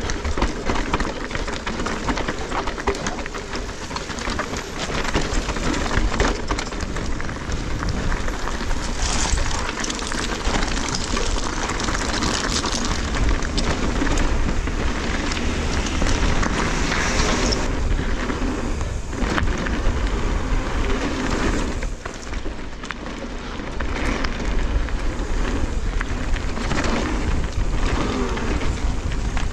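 Mountain bike descending a loose slate trail: tyres crunching and skittering over the stones, with the bike clattering over rough ground and a steady low rumble on the action camera's microphone.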